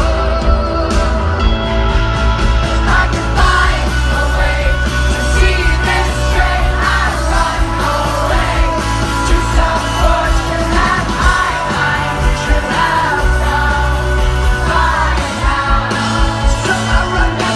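Live rock band playing loudly, with singing coming in about three seconds in over a steady bass and guitar.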